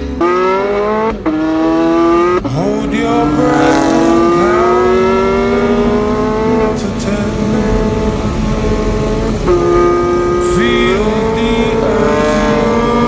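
A supercar engine accelerating hard through the gears, its pitch climbing steadily and dropping back sharply at each gear change, several times.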